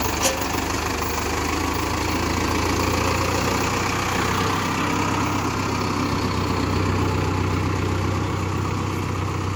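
Mahindra Arjun 605 DI tractor's diesel engine idling steadily, with a short click just after the start.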